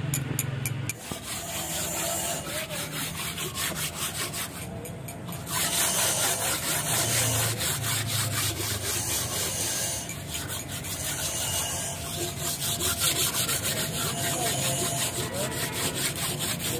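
Hand scraping and rubbing on the gasket face of a three-cylinder tractor diesel's cylinder head in rapid repeated strokes, cleaning off the remains of a burnt head gasket. The strokes let up briefly about five seconds in, then resume harder.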